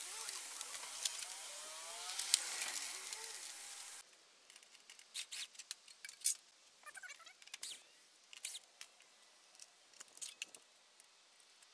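Scattered light clicks and ticks of small screws and plastic trim pieces being handled, over a faint steady hiss with a wavering rising-and-falling tone in the first few seconds.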